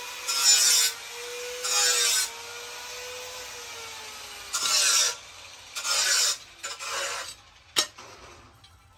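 Five rasping strokes of a hand tool being drawn across a workpiece, each under a second long, then a single sharp click near the end.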